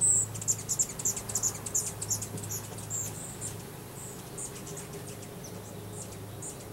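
Honey bees buzzing as a steady low hum around a newly stocked hive. Over it comes a rapid run of short, high squeaky chirps that starts suddenly, is dense for about three seconds and then thins out.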